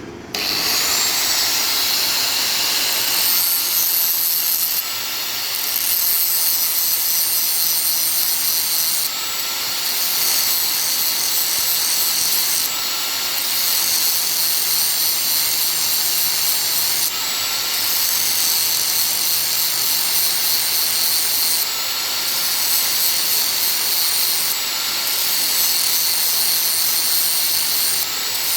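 Steady, loud running of a machine or power tool with a strong high hiss, changing briefly in tone every three to four seconds.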